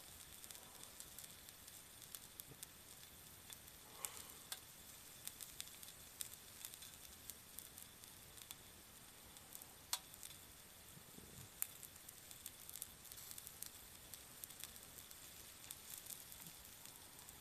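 Frozen nori-wrapped karaage patties sizzling faintly on an electric hot plate, with scattered small pops and crackles of spitting oil and a few louder pops.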